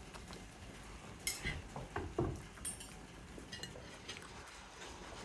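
Dishes and cutlery clinking and knocking lightly on a meal table: a handful of separate short clinks between about one and four seconds in.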